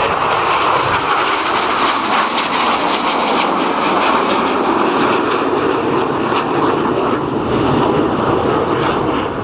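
Red Arrows' BAE Hawk jets flying past in formation: a loud, steady jet roar whose pitch drops gradually as they go by.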